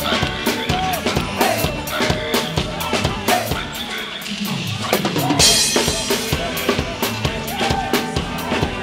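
Live band playing an upbeat groove, the drum kit's bass drum and snare beat to the fore, with electric guitar and saxophone. A cymbal crash comes about five and a half seconds in.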